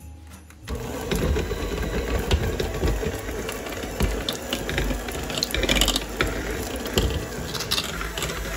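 Electric hand mixer switched on under a second in, running steadily with many small knocks as its beaters cream a block of butter in the bowl.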